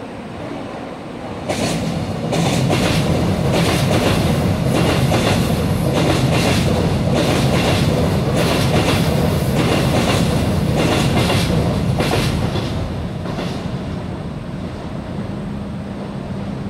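A Seoul Subway Line 7 electric train crossing a steel railway bridge. The rumble and the clatter of its wheels over the rail joints swell up about a second and a half in, stay loud while the cars pass, and fade as the train moves away.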